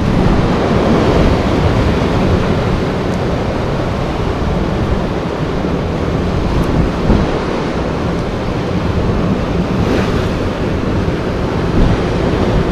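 Sea surf breaking and washing against a rocky shore, a steady noise, with wind buffeting the microphone.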